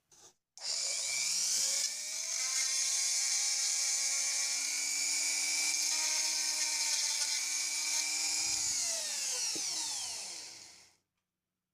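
Handheld rotary tool of the Dremel type spinning up to a steady high-pitched whine while cutting a wire channel in the garage door opener remote's case. Near the end it spins down, its pitch falling, and stops.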